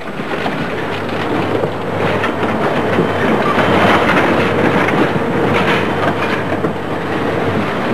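Scrap-yard grapple crane handling a wrecked car: a dense, steady clatter and scraping of metal. A faint steady whine comes in after about two seconds and fades near the end.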